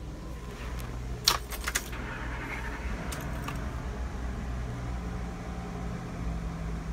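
A motorhome's engine idling, a steady low hum heard in the cab. A brief rattle of sharp clicks comes about a second in, with a few fainter clicks a couple of seconds later.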